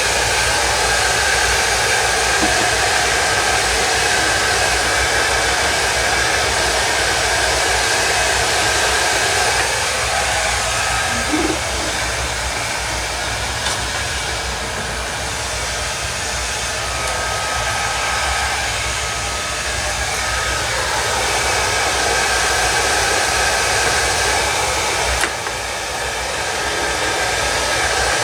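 Heat gun blowing steadily while shrinking MonoKote covering film onto a balsa wing: a continuous hiss with a faint whine, with a short click near the end.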